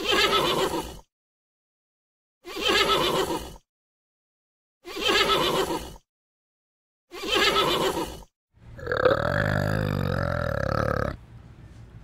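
A horse whinnying in short calls about a second long, four times, with dead silence between them. From about two-thirds of the way in, a different, deeper animal call takes over and lasts about three seconds before dropping away.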